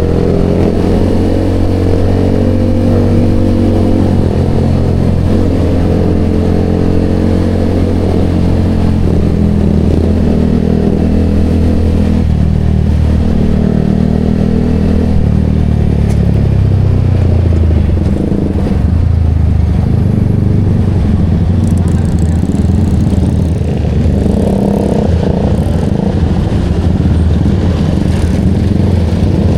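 Yamaha XSR motorcycle with a Vmax aftermarket exhaust canister running while ridden, its exhaust note rising and falling with the throttle and dropping in pitch for several seconds around the middle.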